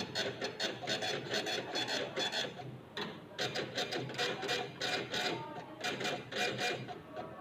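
Cash register's receipt printer printing a receipt after the payment is entered: a rapid series of short strokes, several a second, pausing briefly about three seconds in.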